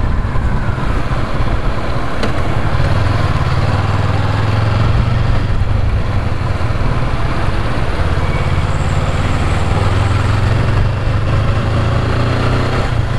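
Honda CB500X's parallel-twin engine running steadily while the motorcycle rides along, with an even rush of wind and road noise over it.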